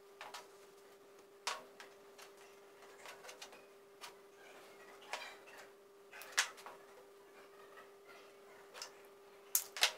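Irregular small clicks and taps of wires, pliers and a stepper motor being handled on a wooden tabletop, loudest about six seconds in and twice near the end, over a steady faint hum.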